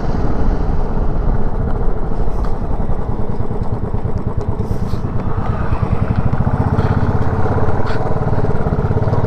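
Motorcycle engine running steadily as the bike is ridden, its exhaust pulses dense and even; the low engine note gets stronger about six seconds in.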